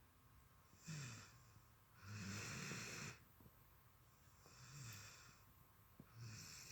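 Dog snoring softly in its sleep: four slow breaths, each a low rasp with a hiss of air, about one every one and a half to two seconds.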